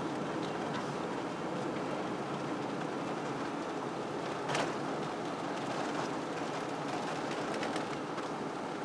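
Steady road and engine noise inside a moving car, with one short sharp click about four and a half seconds in.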